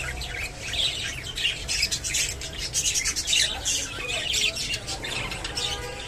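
Budgerigar chatter: a continuous run of quick, scratchy chirps and warbles.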